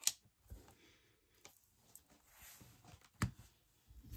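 A few light taps and knocks of stamping: a stamp being tapped on an ink pad and pressed onto card. The clearest knocks come right at the start and a little past three seconds in, with fainter ticks between.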